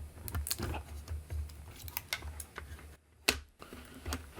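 Irregular light clicks and knocks of an LCD display panel being handled and fitted into a 3D-printed plastic case.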